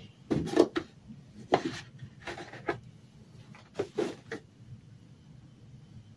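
Handling noise as a plastic gallon jug is moved on a table and tipped toward a plastic tumbler: four short bursts of knocks and rubs in the first four seconds, the first two loudest, then quiet.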